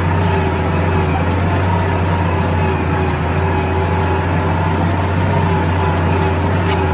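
Tractor engine running steadily under load, towing a disc harrow through soil: an even, low drone with no changes in speed.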